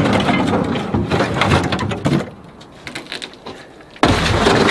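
Rusted scrap iron clanking and scraping as it is wrestled out of a truck bed, then a loud crash about four seconds in as a heavy piece lands on the scrap heap.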